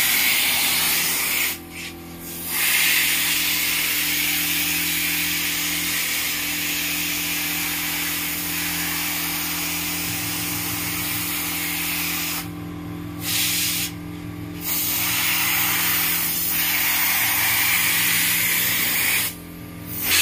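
Compressed-air gravity-feed spray gun hissing steadily as it sprays wood finish, cutting out four times when the trigger is let go, over a steady low hum.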